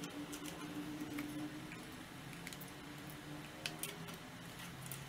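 Faint clicks and taps of cables being plugged into an external hard drive and a desktop computer, over the steady hum of the running computer, which drops in pitch about two seconds in.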